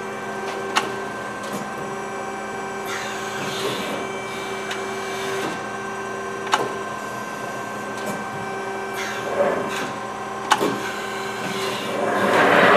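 Amada HFB-125 hydraulic press brake being cycled: the hydraulic pump hums steadily while the machine runs through its program, with a few sharp clicks and several swells of rushing noise, the loudest near the end.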